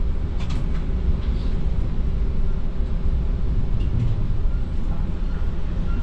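A TTC streetcar running on its rails, heard from on board: a steady low rumble with a few light clicks.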